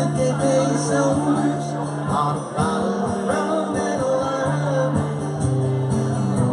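Live band music with no lyrics: a melodic lead line over held bass notes and light percussion.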